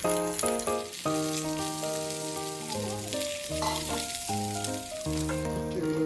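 Food sizzling as it fries in a pan, a dense steady hiss, under background music of steady held notes that change every half second or so.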